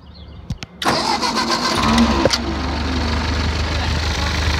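Ford 8N tractor's four-cylinder flathead engine being cranked by the starter a little under a second in, catching after about a second and settling into a steady idle.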